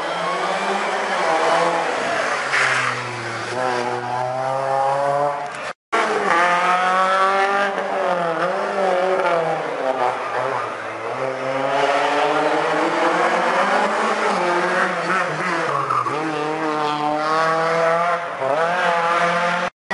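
Rally car engine revving hard, its pitch climbing and dropping again and again as it accelerates and brakes through the corners. The sound breaks off briefly about six seconds in, then carries on.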